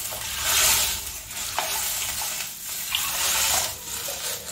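Water poured from a steel cup into a hot stainless-steel pan still greasy from roasting rava in ghee and oil, splashing and sizzling. It swells in surges as each cupful goes in.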